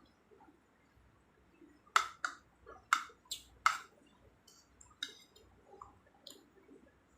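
Close-miked eating sounds: chewing with a run of sharp, crisp clicks, most of them between about two and four seconds in, and softer ones after.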